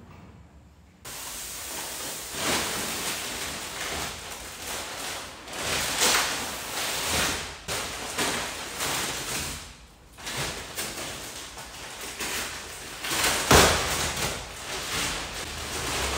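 A large clear plastic bag rustling and crinkling as it is handled and shifted around, in repeated swells, loudest about thirteen seconds in.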